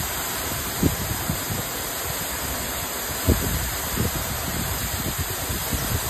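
Aber Falls, a tall waterfall falling onto rocks and a plunge pool, making a steady rushing hiss. A few short low thumps sound over it, the loudest about a second in and a little after three seconds.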